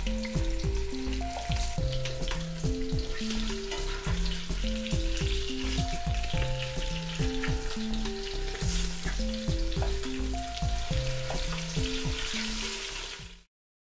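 Lamb shoulder blade steaks sizzling and crackling as they brown in hot oil and butter in a stainless steel stockpot, turned over with metal tongs. The sizzle fades out shortly before the end.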